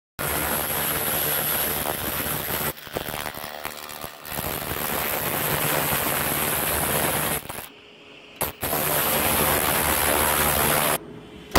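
Hand-held pulsed laser cleaner ablating rust from steel: a loud, continuous crackling hiss with a steady high whine and a low hum beneath. It cuts out briefly about three seconds in, again around eight seconds, and near the end.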